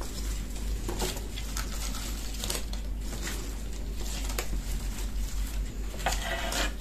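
Fresh green garlic stalks and leaves rustling as they are handled and separated by hand, with irregular small crackles and clicks.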